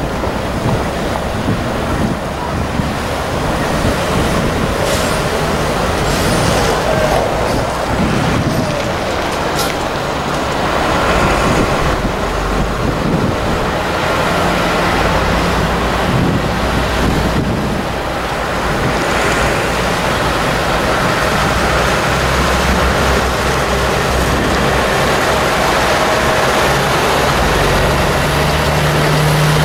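A convoy of fire engines passing slowly one after another, their diesel engines running at low speed with a steady hum and road noise.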